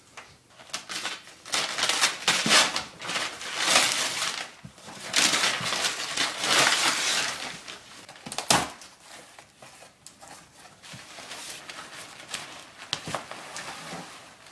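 Paper wrapping being torn and crumpled as a gift is unwrapped, in loud rustling bursts for the first several seconds, a sharp knock, then softer rustling.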